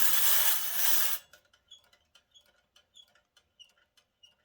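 Clockwork mechanism of a wind-up tin carnival boat-swing toy: a loud rasping whir that stops suddenly about a second in, followed by faint, even ticking about three times a second, each tick with a light metallic ring.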